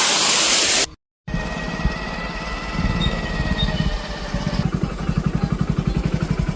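Waterfall rushing for about a second, cut off abruptly. Then a motorcycle engine running while being ridden, with a fast, even low pulsing that grows stronger after a few seconds.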